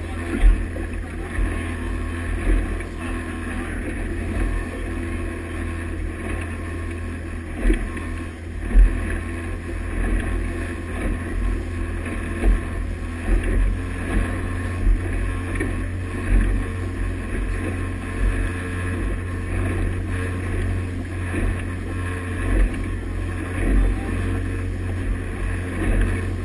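Motorboat under way at speed: a steady engine drone under the rush of its churning wake and wind on the microphone, with frequent low thumps.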